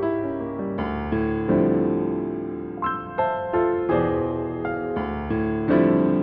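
Credits music: a keyboard playing slow, gentle chords, a new chord struck every second or so.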